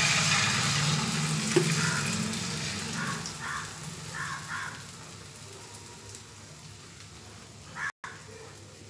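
Beaten egg with chopped onion poured into hot oil in a non-stick frying pan, sizzling loudly at first and then dying down to a gentle fry.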